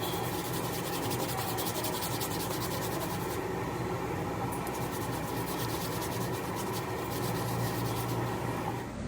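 Rapid, rhythmic abrasive scraping strokes, like hand sanding or filing, in two runs with a short pause a little before the middle, over a steady low hum.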